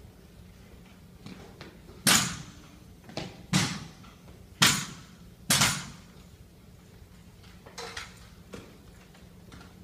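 Sharp knocks from an armed drill team's drill-rifle movements, echoing in a large hard-floored hall. Five loud strikes come between about two and six seconds in, then two fainter ones near the end.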